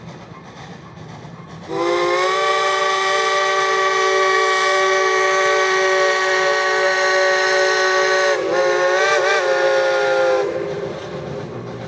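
Steam whistle of the Climax geared steam locomotive No. 9, blowing one long chime of several notes. It starts about two seconds in and holds steady, then its pitch dips and wavers shortly before it stops. The locomotive's low running rumble is heard before and after the blast.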